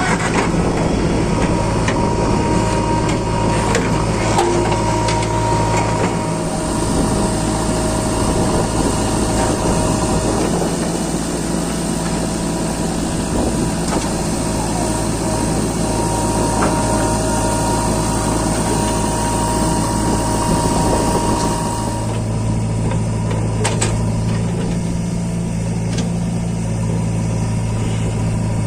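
Heavy diesel engines of a backhoe loader and tipper trucks running steadily, with a faint whine that comes and goes. A hissing noise above the engines drops away about 22 seconds in.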